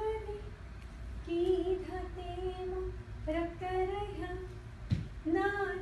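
A woman singing the slow, melismatic vocal line of a Bharatanatyam shabdam song, in long held notes that bend and slide between pitches. One short thump is heard about five seconds in.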